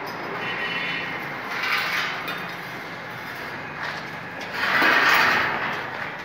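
Welded steel grill gate scraping on a concrete floor as it is shifted and lifted, in two noisy swells: one about two seconds in and a louder one near the end.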